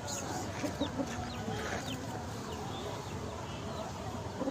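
Aseel chickens clucking in short low notes, with many quick high chirps over them and no crowing.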